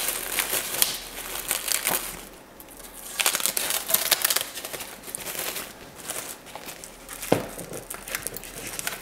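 Plastic wrap and blue painter's tape crinkling in bursts as hands handle and peel back the masking on a freshly painted model truck bed, with one sharp click about seven seconds in.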